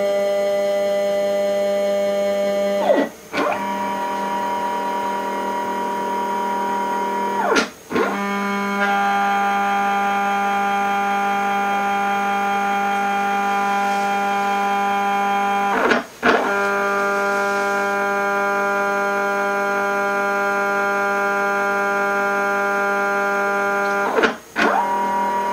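Stepper motors of a four-axis linear, pitch, roll and yaw positioning stage whining steadily as the axes drive. Four times the whine sweeps down in pitch to a brief stop and straight back up, as an axis ramps down, reverses and speeds up again, with the pitch of the whine changing between runs.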